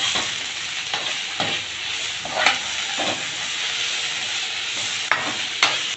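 Sliced onions frying in oil in a kadai, sizzling steadily while a spatula stirs them. The spatula scrapes and knocks against the pan about once a second.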